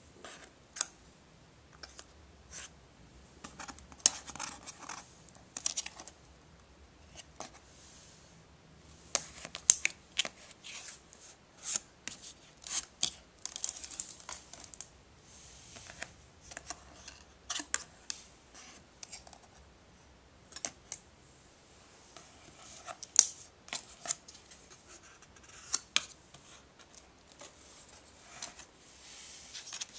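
Stiff cardboard pages and flaps of a board book being handled: irregular clicks, taps and short scrapes as pages turn and flaps are lifted and rubbed.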